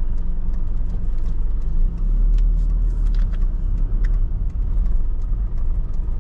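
Car cabin noise while driving slowly: a steady low rumble from the engine and tyres, with faint scattered ticks.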